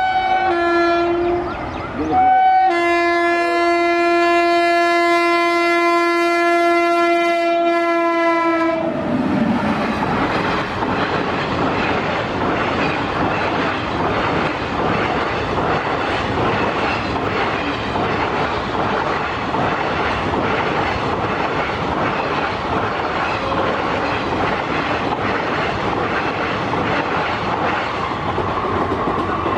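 Horn of a WAP-7 electric locomotive sounding short alternating high and low notes, then one long low blast of about six seconds. The express then rushes past, its wheels clattering steadily over the rails.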